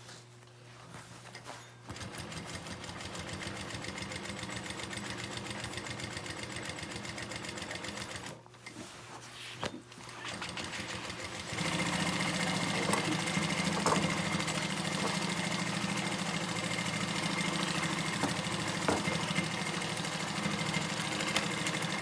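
Jack 6380 walking-foot industrial sewing machine stitching through a thick stack of foam and canvas layers, a fast even clatter of the needle and feet. It starts about two seconds in, stops briefly around eight seconds, then runs again, louder, for the last ten seconds.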